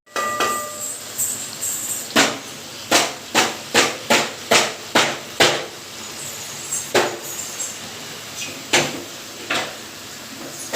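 A metal ladle knocking against the side of a cooking pan as the carrot halwa is stirred: about eight sharp knocks in quick, even succession, then a few more spaced further apart near the end.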